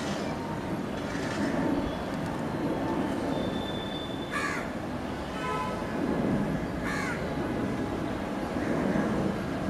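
Crows cawing, with single calls about four and seven seconds in, over the steady low rumble of a climbing Air India Airbus jet.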